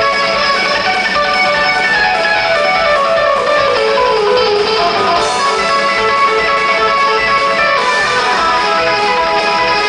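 Live band playing a fast country instrumental on electric guitars, one guitar taking the lead with quick runs of notes, including a run stepping downward about halfway through.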